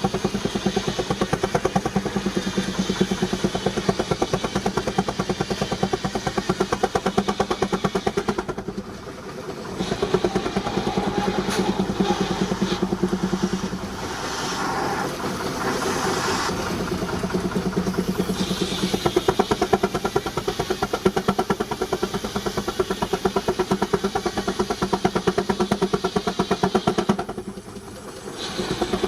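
19-65 Uniflow Baker steam traction engine running belted to a sawmill, with rapid even exhaust beats over a steady hum. The sound drops away briefly twice, about nine seconds in and near the end.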